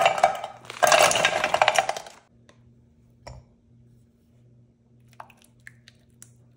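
Frozen meatballs tipped from a plastic bag, clattering hard into a bundt pan in two bursts, the second lasting about a second; a few faint clicks follow.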